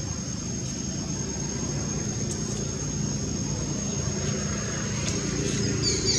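Steady low drone of a distant engine under a thin high insect buzz. Just before the end, a long-tailed macaque starts crying loudly in shrill, broken calls.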